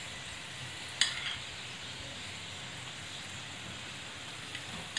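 Oil sizzling steadily under a stuffed potato paratha frying on a hot non-stick pan, with one sharp click about a second in.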